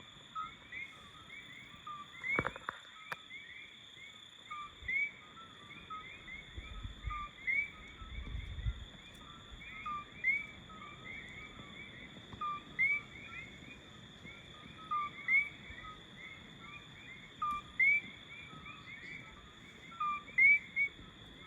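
Coqui frogs calling in chorus: repeated two-note "co-kee" calls, a short low note followed by a higher rising one, several frogs overlapping. Under them runs a steady high-pitched insect drone, and there is a brief knock about two and a half seconds in.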